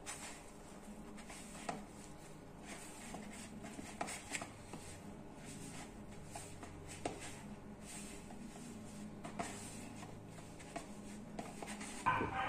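Hands kneading flour-and-water pizza dough in a plastic bowl: faint, irregular soft scuffing and squishing with occasional light taps against the bowl, over a faint steady hum.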